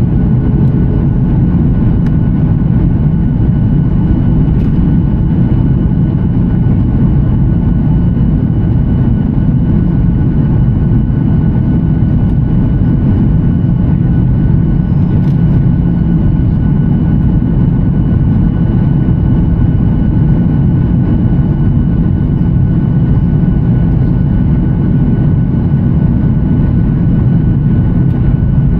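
Steady, unbroken drone of a Boeing 737-900ER's CFM56 jet engines and airflow, heavy in the low end, with a faint steady whine above it.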